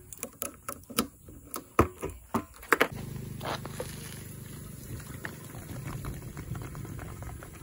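Keys clicking and rattling as a motorcycle's locking fuel cap is unlocked and flipped open. From about three seconds in, petrol glugs steadily from a half-litre plastic bottle into the tank.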